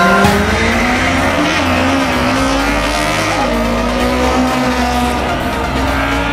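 Drag-racing cars launching off the start line and accelerating hard down the strip, the engine note climbing steadily, dropping at a gear shift about three seconds in, then climbing again.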